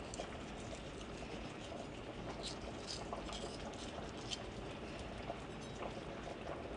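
Faint scratchy scrapes and light clicks of a kitchen knife cutting into a piece of conch meat held in a paper towel.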